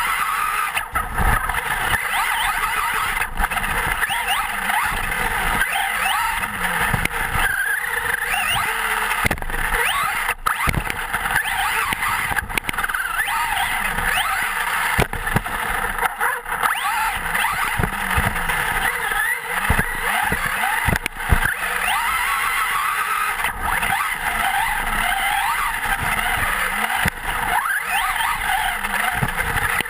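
Traxxas Slash 4x4 electric RC truck on a 2S LiPo, heard through its own onboard camera: the motor's whine rises and falls over and over with the throttle, over a steady noise of tyres on dirt. Sharp knocks come now and then from bumps and landings.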